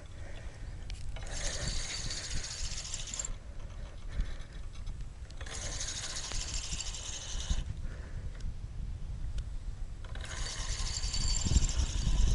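Spinning reel whirring in three spurts of about two seconds each while a hooked carp is fought on a bent feeder rod.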